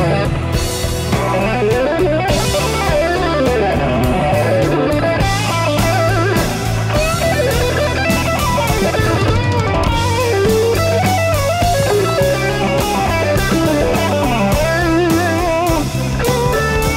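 Jazz band recording: an electric guitar plays a winding melodic line over electric bass and a drum kit.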